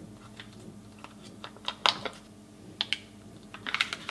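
Table knife cutting a block of butter on a plastic chopping board: scattered light clicks and taps, with a quick run of clicks near the end.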